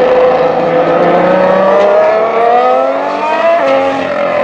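2016 Formula 1 car's 1.6-litre V6 turbo-hybrid engine accelerating hard, its pitch rising steadily, with one upshift near the end where the pitch drops before it climbs again.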